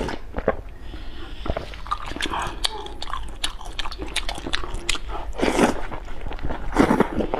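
Close-miked eating of glass noodles: chewing with many small wet mouth clicks, and two louder slurps about five and a half and seven seconds in.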